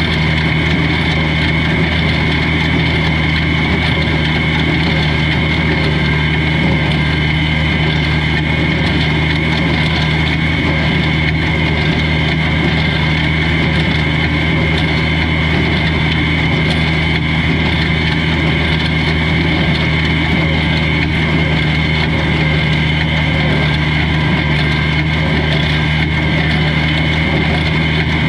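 Old farm tractor engine running at a steady speed, with a steady high-pitched whine alongside it.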